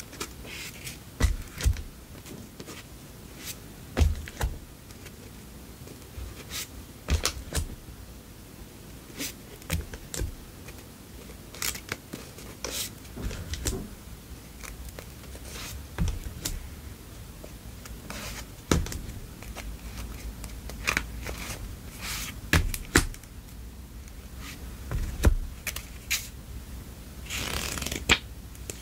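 Stacks of paper memo cards being handled: irregular light taps and clicks as cards are squared, shuffled and set down, with a brief riffle of pages from a block memo pad being flipped near the end.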